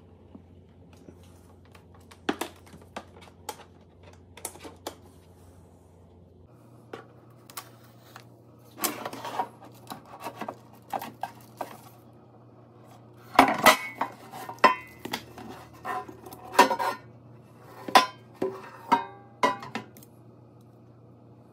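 Ninja two-basket air fryer's basket drawer and crisper plate being handled: sharp clicks and knocks of hard parts clattering against each other, sparse at first, then a busier, louder run of knocks in the second half.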